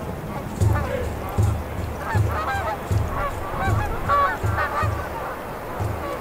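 Music with a steady low beat, one thump about every three quarters of a second, with short honking calls over it.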